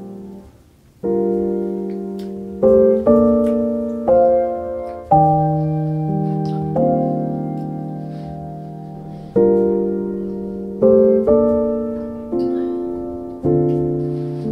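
Background piano music: slow chords, each struck and left to ring and fade, with a short break just before the first second.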